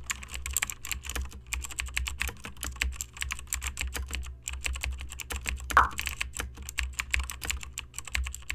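Typing sound effect: rapid, irregular key clicks over a steady low hum, with one short rising tone about six seconds in.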